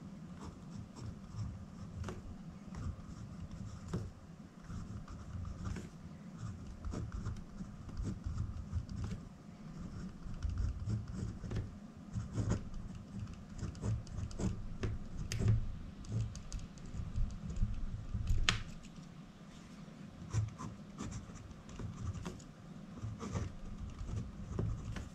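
Pen writing on lined notebook paper: irregular scratching strokes with small ticks as the tip lifts and touches down.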